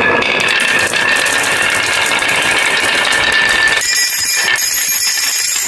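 Many glass marbles rolling and clattering together down a carved wooden wave track, a dense rattle of clicks. About two-thirds through, the sound changes to brighter clinks as marbles tumble off the end into a glass bowl.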